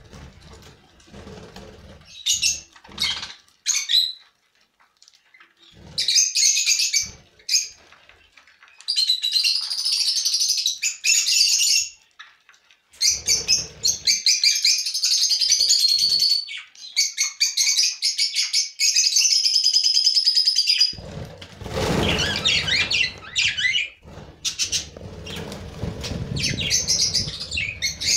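A flock of budgerigars chattering and warbling in long, busy stretches. About three-quarters of the way through comes a flurry of fluttering wings.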